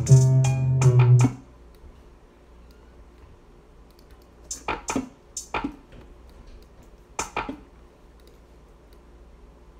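A trap beat with a deep bass line playing back from the computer, stopped about a second in. Then three pairs of sharp computer mouse and keyboard clicks over quiet room tone.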